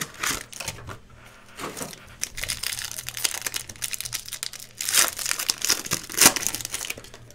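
Foil wrapper of a hockey card pack being torn open and crinkled by hand: an irregular run of crackles, with two louder crinkles near the end.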